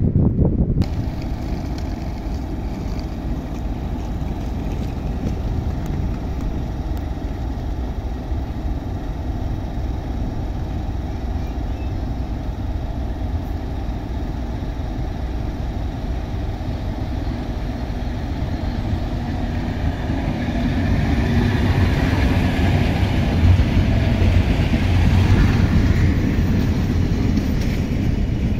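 Passenger train hauled by an electric locomotive pulling into a station platform: a steady low rumble that grows louder about twenty seconds in as the coaches roll past close by, with more wheel-on-rail noise.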